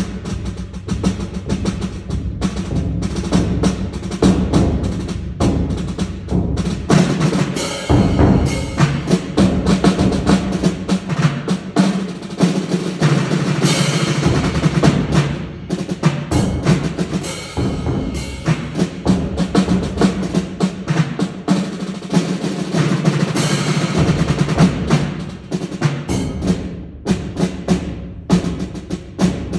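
Drum ensemble of snare drums, a rope-tension field drum and a bass drum playing a rudimental piece: rapid sticking and rolls, swelling into louder passages several times.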